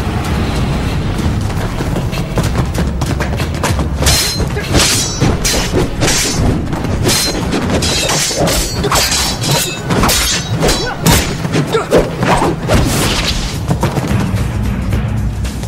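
Action-film fight soundtrack: music with a steady low pulse under a fast run of sharp hits, swishes and metallic clinks as a knife meets a baton. The hits come thickest in the middle stretch and thin out near the end.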